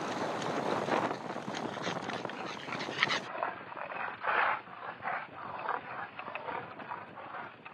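Boston terrier running and panting close to the microphone. A dense rushing noise fills the first three seconds, then gives way to separate short, breathy bursts.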